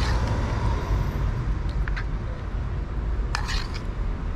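Steady low rumble of background road traffic, with a few short clicks about two seconds in and a brief scrape about three and a half seconds in.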